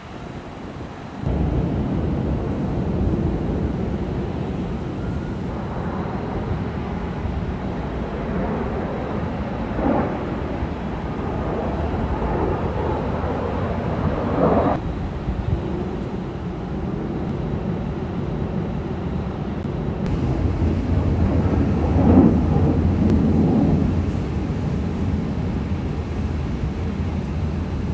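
Low, steady rumble of aircraft engines passing overhead. It comes in suddenly about a second in and swells loudest a little past two-thirds of the way through.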